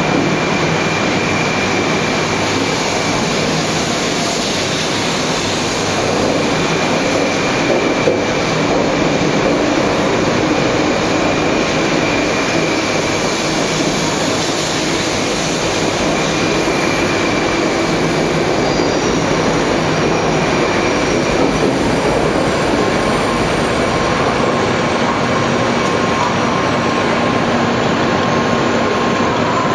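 200 series Shinkansen pulling out of the platform, its cars rolling past with a steady running rumble and hiss. A faint high whine runs through roughly the first half.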